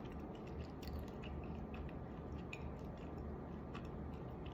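Faint chewing of a mouthful of granola cereal with yogurt and fruit, with small crunchy clicks here and there.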